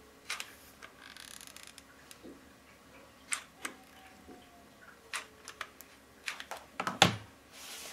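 Scattered clicks and light knocks as a hot glue gun is worked over paper and fabric, with brief paper rustling about a second in and again near the end. A louder, heavier knock comes near the end.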